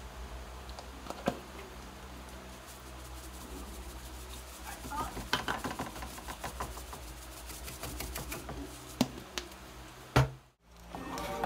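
A Knorr Aromat seasoning shaker shaken over a pot of mashed potatoes, giving soft clicks and rattles in a cluster about halfway through. Near the end comes a knock as it is set down, all over a low steady hum.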